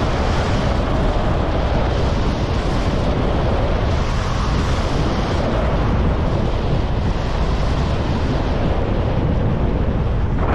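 Wind rushing over an action camera's microphone during a fast ski descent, mixed with the hiss and scrape of skis running on snow. The noise is loud and steady throughout.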